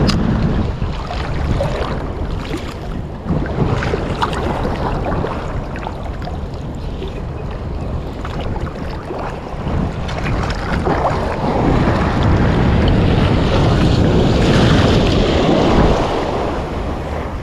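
Strong wind buffeting the microphone over sea waves breaking against the shore, the gusts and surf swelling louder near the end.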